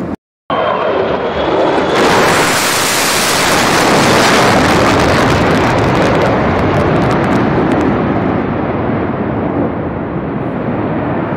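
F/A-18 fighter jet flying past: a falling whine gives way to a loud jet roar that swells about two seconds in, peaks around four seconds, then slowly fades.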